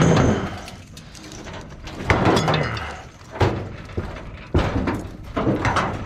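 Sheet-metal parts of a heat pump unit clanking and knocking as they are handled and pulled apart: about five separate metallic knocks, each with a short ring.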